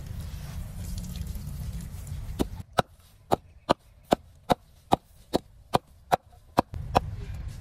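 A knife chopping green leaves on a wooden board: twelve sharp, even chops, about two and a half a second, starting a couple of seconds in.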